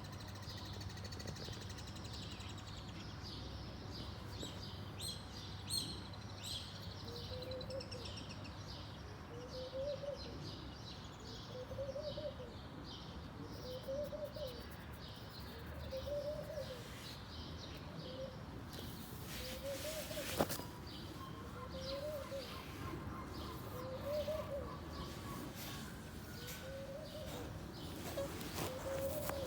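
Outdoor morning ambience: birds chirping in quick high runs over a steady background hum. A short, lower call rises and falls once about every two seconds.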